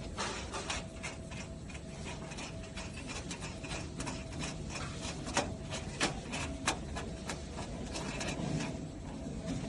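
Small metal clicks and scrapes from a display-cabinet cam lock being fitted and turned in its metal door frame by gloved hands, irregular, with three sharper clicks a little after halfway.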